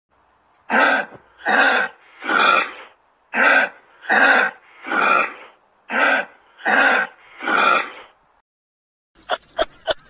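Kangaroo calling: nine harsh, raspy calls in three groups of three, the calls in each group growing longer. Near the end comes a quick run of short, sharp clicks.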